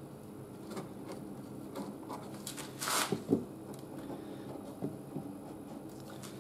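Light handling sounds: a pen scratching along masking tape on a plastic mudguard, with a few light knocks as a spray can is shifted against it. The strongest scratch comes about three seconds in, over a faint steady hum.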